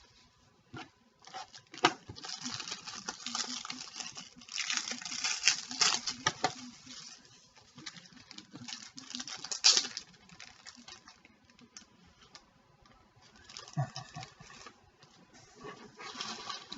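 Trading-card pack being opened by hand: the wrapper crinkles and tears in irregular rustling bursts, with a few sharp snaps, then quieter handling near the end.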